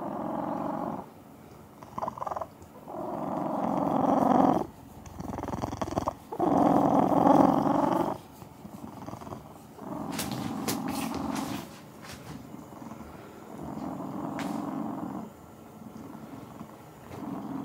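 Domestic cat purring loudly, the purr coming in long swells of a second or two each with quieter stretches between.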